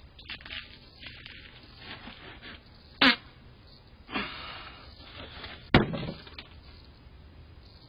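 Short farts and sharp thuds picked up through a Ring video doorbell's microphone: two sharp thuds about three and six seconds in, with a short falling burst between them.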